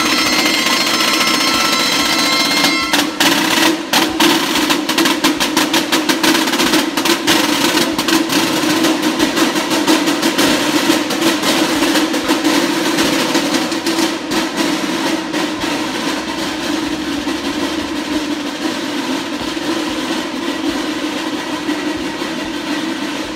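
Street band of pipes and a snare-type drum playing. A piped melody is heard for the first few seconds, then the drum takes over with fast rolls and strokes that carry on through the rest.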